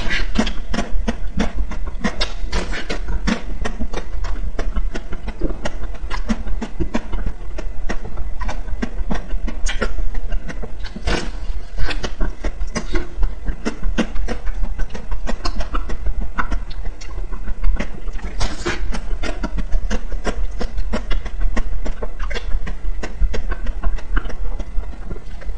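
Close-miked biting and chewing of a frozen ice cream bar with a hard shell coating: a dense, irregular run of crunches and crackles over a steady low hum.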